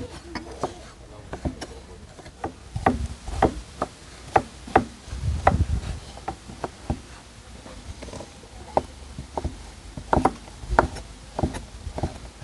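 Knife chopping lamb fat-tail (kurdyuk) into small cubes on a cutting board: a steady run of sharp, uneven knocks, roughly two a second.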